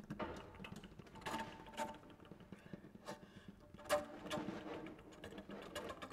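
Bass flute played with extended techniques: sparse, irregular short percussive attacks and breathy sounds, with a few brief pitched notes.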